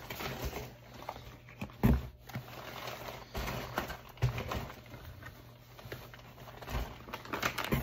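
Grocery packages being handled and set into a cardboard shipping box: a few dull knocks and thumps, the loudest about two seconds in, with light rustling between them.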